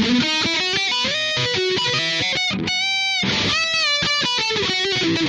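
Electric guitar played through a NUX MG-100 multi-effects processor on its metal preset: a distorted lead line of quick notes with some bends, and one note held with vibrato about midway.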